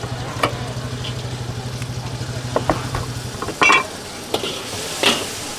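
Stir-frying noodles in a wok: a metal spatula knocks against the wok several times, the loudest a ringing clang a little after halfway, over frying. A steady low engine-like hum runs underneath and stops about three seconds in.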